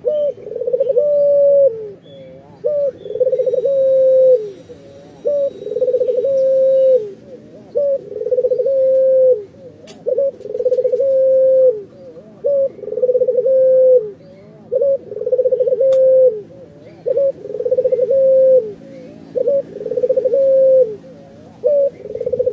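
Ringneck (Barbary) dove cooing over and over, about ten coos, one every two seconds or so. Each coo is a short note followed by a longer rolling note that drops in pitch at its end.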